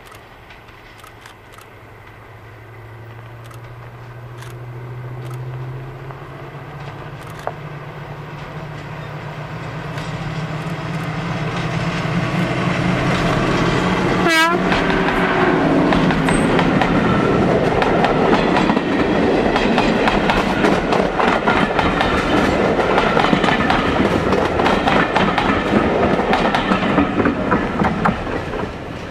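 A Class 55 Deltic diesel locomotive with its two Napier Deltic two-stroke engines running. Its engine drone grows louder as it approaches, with a short sharp crack as it passes close about halfway through. Its coaches then rattle by over the rail joints, and the sound falls away near the end.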